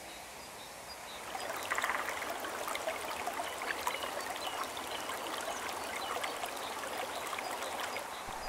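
Mountain stream running down a rocky gully in small waterfalls, with steady rushing and splashing water that swells up about a second in.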